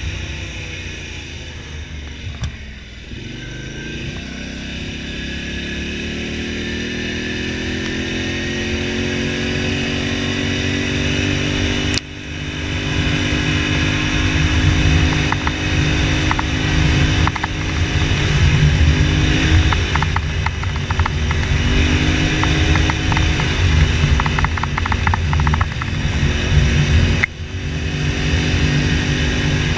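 Polaris Sportsman XP 1000 ATV's twin-cylinder engine running under way. Its pitch drops about three seconds in, then climbs slowly and holds at a steady drone. There is a sudden brief dip in loudness about twelve seconds in and again near the end, and scattered light ticks in the middle stretch.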